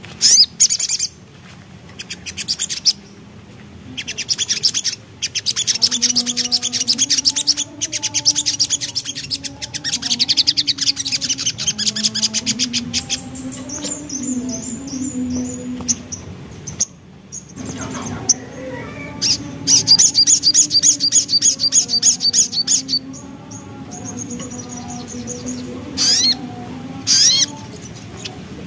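Sogok ontong (crimson sunbird) singing a rapid, chattering 'ngriwik' song: long bursts of very fast repeated high notes, broken by short pauses. A low wavering hum runs beneath.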